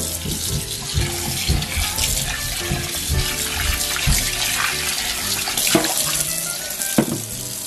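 Kitchen tap running into a stainless steel sink while a blender lid is rinsed under the stream, water splashing off it and running down the drain, with a few knocks as the lid is handled.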